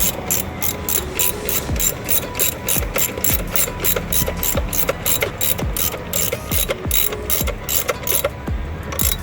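Hand ratchet wrench clicking steadily, about four clicks a second, as the 10 mm bolt is run into the power steering bracket; the clicking stops about eight seconds in, with one last click just before the end.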